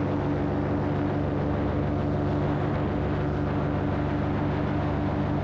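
Paramotor engine running steadily at one constant pitch in flight, with wind rushing over the microphone.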